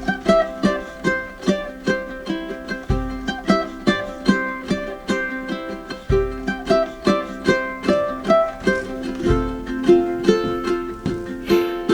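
Music of a plucked string instrument playing a steady, even run of notes, with a deep bass note about every three seconds.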